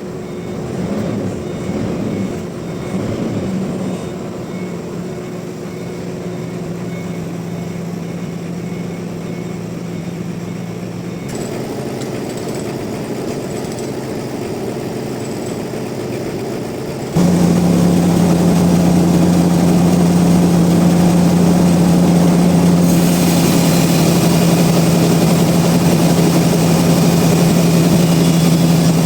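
Sawmill machinery running with a steady low hum. It jumps louder about two-thirds of the way through, and a hiss joins in a few seconds later.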